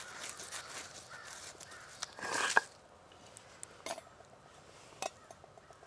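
Charred, water-doused campfire ashes and charcoal being stirred and broken up by hand and with a stick: a soft crunching and scraping. A single short, harsh, louder sound comes about two seconds in, followed by a few light clicks.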